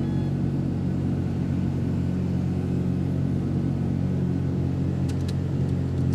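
Van engine idling steadily, heard from inside the cab, with a couple of faint clicks about five seconds in.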